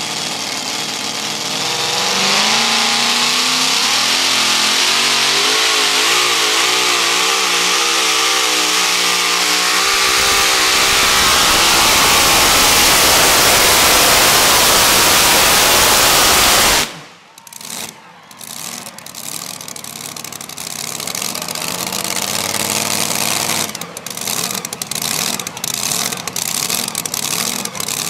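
Supercharged engine of a modified two-wheel-drive pulling truck at full throttle under load of the pulling sled, its revs climbing and wavering up and down. About two-thirds in the sound drops off suddenly, and the engine runs on lower and uneven with a string of sharp pops and crackles.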